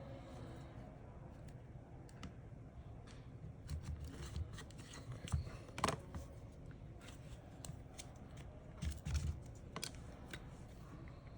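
Scattered small clicks, taps and scrapes of tools and parts being handled while an iPhone XR is opened up for repair, over a steady low hum. The sharpest clicks come a little past the middle and again near the end.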